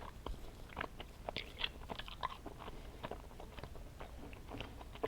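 Close-up eating of Sweet Tarts mini rope candy: faint, irregular clicks and smacks of chewing.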